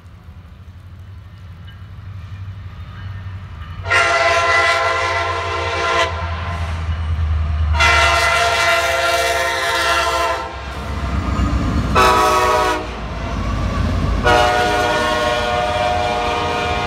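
Norfolk Southern diesel locomotive's air horn sounding the grade-crossing signal, two long blasts, a short one, then another long one, each a chord of several notes. Under it the low rumble of the approaching freight train swells over the first few seconds and keeps on.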